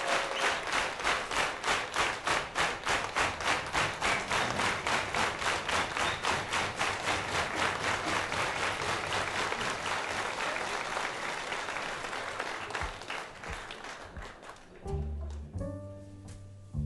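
Audience clapping together in a steady rhythm, about four claps a second, fading away. Near the end a jazz trio comes in, with double bass and piano notes.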